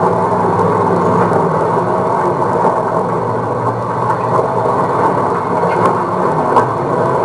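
Old Chevy pickup truck with a camper driving up a rough mountain track, heard from inside the cab: a steady engine drone under loud road rumble, with a few sharp knocks and rattles in the second half.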